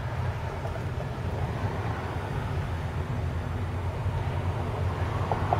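Car engine and road noise heard inside the cabin: a steady low hum.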